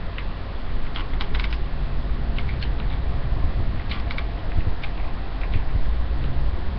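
Hair being worked with a corded flat iron: scattered light clicks and creaks over a steady low rumble.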